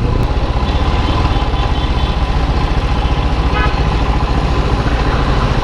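Motorcycle engine running steadily while riding, with a fast, even pulsing beat.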